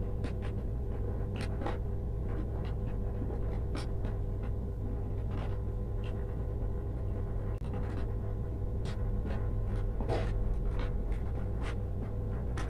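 Rustling, scraping and light clicks of insulated electrical wires being handled and pushed into a plastic junction box, scattered irregularly over a steady low background hum.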